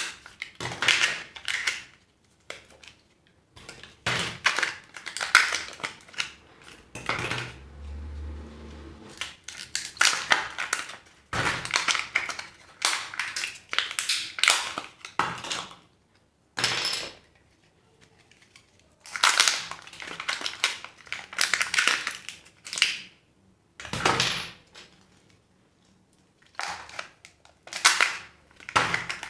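Plastic and foil wrappers of surprise eggs and candies being crinkled and torn open by hand, in a string of irregular crackling bursts with short pauses between them.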